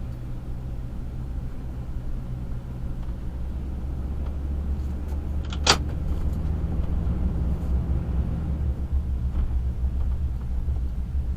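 A truck running down the road, heard as a steady low rumble of engine and road noise. A single brief sharp sound cuts in about halfway through.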